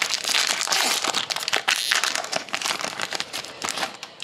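Foil wrapper of a hockey trading-card pack crinkling as it is opened and pulled off the cards: a dense run of irregular crackles.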